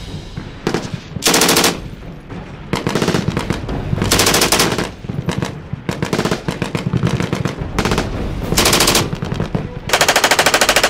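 Machine-gun fire: about six short automatic bursts of rapid shots, then a longer burst with an even rapid rhythm starting near the end.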